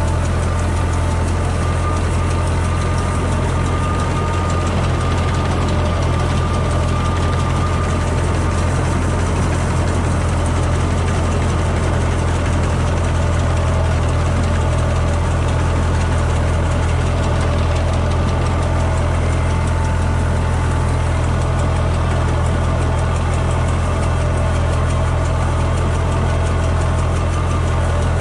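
Tractor and towed air-blast orchard sprayer running steadily while spraying: a constant engine hum under the rushing of the sprayer's fan blowing pesticide mist.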